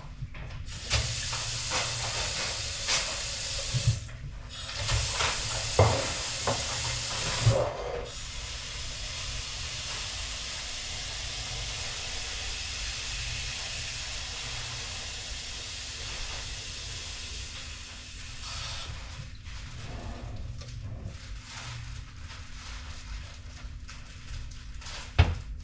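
Kitchen tap running into the sink, turned off briefly twice in the first eight seconds amid clinks and knocks of things being handled, then running steadily until it is shut off about 18 seconds in.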